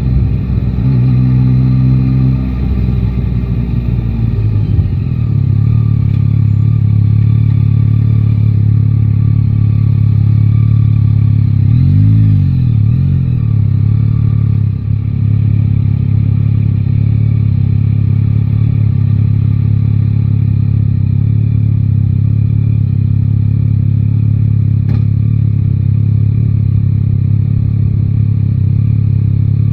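Yamaha Tracer 9 GT's inline-three engine running under way, its note shifting for the first few seconds and then holding steady. There is a brief wavering in pitch about twelve seconds in.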